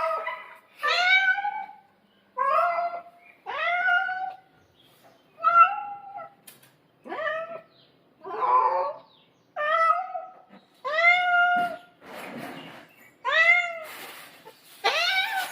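A domestic cat meowing over and over, about a dozen loud calls at roughly one a second, the insistent meowing of a cat excited by the smell of fish.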